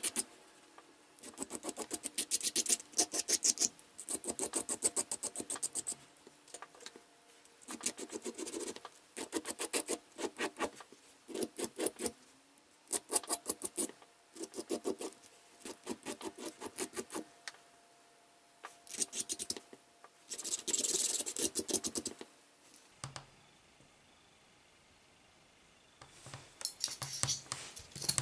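Hand file rasping across the edge of a small cut metal plate to take off the burrs, in bursts of quick back-and-forth strokes with short pauses. After a pause near the end, a few lighter scrapes.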